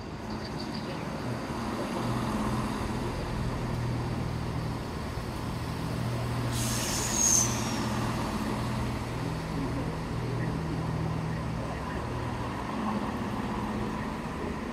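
Diesel train engine running steadily. About seven seconds in, a short hiss with a high squeal cuts through, like an air brake or brake squeal.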